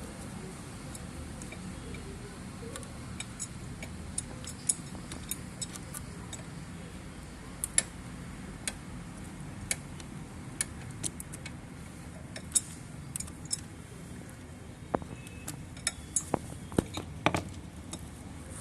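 Irregular light clicks and knocks of hand tools and PVC pipe being handled during plumbing work, coming more often in the second half, over a steady low background rumble.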